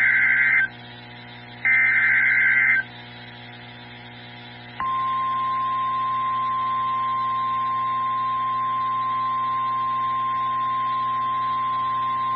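NOAA Weather Radio alert signalling: the last two of the three SAME digital header bursts, each a loud data burst about a second long with a one-second gap between them, then after a two-second pause the steady single-pitched 1050 Hz warning alarm tone, which starts about five seconds in and holds to the end. It marks the start of a new warning broadcast.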